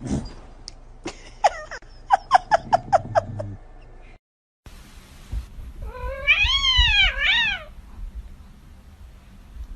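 Domestic cat calls: a quick run of short chirping meows, about three a second. After a brief gap comes one long drawn-out meow that rises and falls twice.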